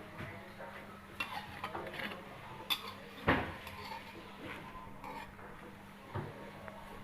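Cookware and metal utensils clinking and knocking while roti is cooked, with one louder knock about three seconds in, over a steady low hum.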